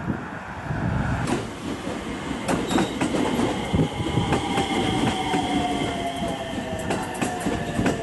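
JR West 227-series electric commuter train moving slowly alongside a platform. Its wheels clack over rail joints, and there is a high wheel squeal. A motor whine falls gradually in pitch as the train slows to a stop.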